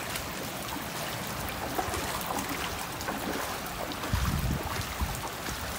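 Floodwater flowing and lapping over a flooded street, a steady even wash of water, with a short low rumble about four seconds in.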